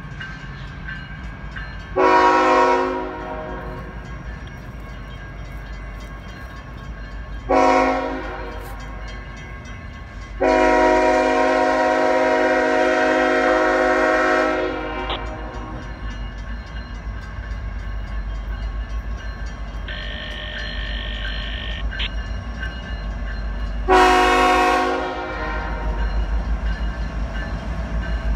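Nathan K5HLL-R2 hybrid five-chime air horn on a CSX ET44AH locomotive sounding four blasts, the third held about four seconds. Under it is the steady low rumble of the approaching diesel locomotives, which grows louder near the end.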